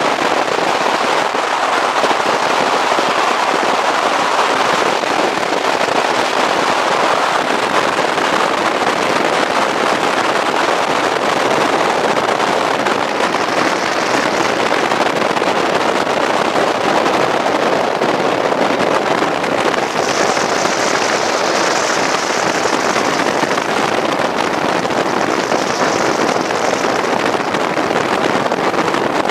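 Steady, loud rushing noise of a boat under way: wind buffeting the microphone over the sound of the motor and water.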